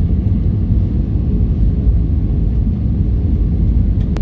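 Steady low rumble of an airliner's engines and rushing air, heard inside the passenger cabin on approach to landing, with a faint steady hum above it.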